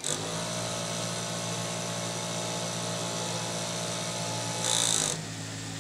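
Juki feed-off-the-arm industrial sewing machine running a seam at a steady high speed, starting abruptly. Near the end it briefly gets louder and hissier, then runs on more quietly.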